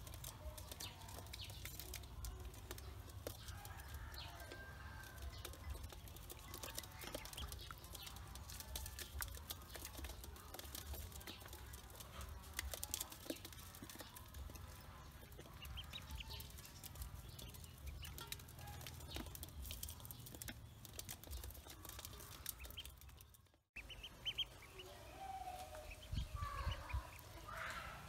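Domestic ducklings peeping while pecking feed from a metal bowl, their beaks tapping the metal in quick irregular clicks over a low rumble. After a brief dropout near the end, the peeping comes louder and clearer.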